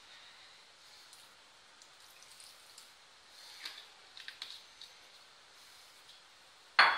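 Faint soft handling sounds as kewra water is poured over the rice and chicken in a steel pot, then a sudden loud metallic clatter of a pot or utensil just before the end.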